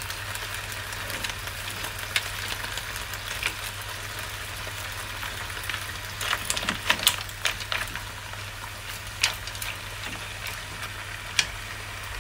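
Crab legs and mussels sizzling in garlic butter in a pot on the stove: a steady hiss with scattered sharp crackles and pops, a cluster of them about halfway through. A steady low hum runs underneath.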